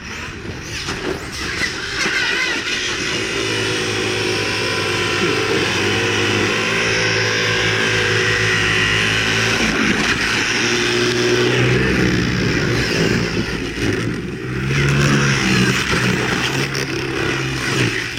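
Brushless electric RC car running hard, its motor whining loudly with the pitch rising and falling as it speeds up and slows, over tyre noise.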